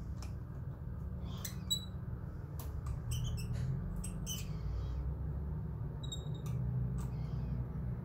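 Small irregular metallic clicks and ticks of a Rotor pick lockpicking tool working inside a Cisa Astral cylinder as the pins are tested one by one for binding, over a steady low hum.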